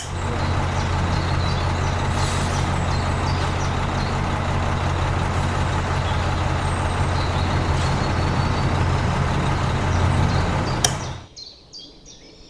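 A machine running steadily, a low hum under a hiss. It starts abruptly and cuts off about eleven seconds in.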